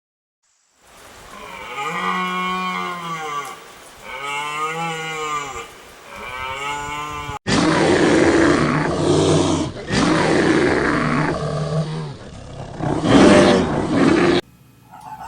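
A cow mooing three times, each moo a long call that rises and falls in pitch. Then, after an abrupt cut, a rougher, noisier series of loud animal calls lasts about seven seconds.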